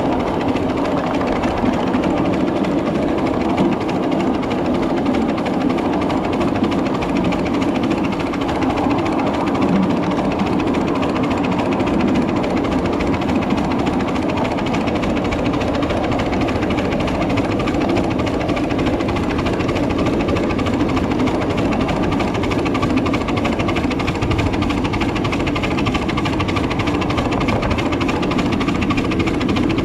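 A 7.5-inch gauge miniature riding train running along its track, with a steady, unbroken rattling rumble from the wheels and cars.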